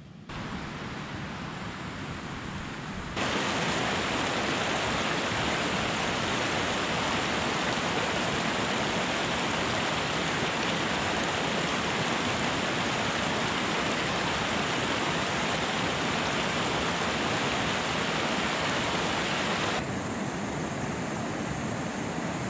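Mountain stream rushing over rocks, a steady loud rush of water. It grows louder about three seconds in and drops back somewhat near the end.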